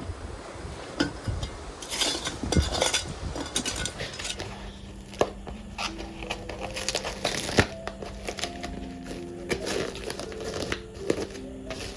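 Clinks and knocks of hard objects being handled, with background music coming in about four seconds in.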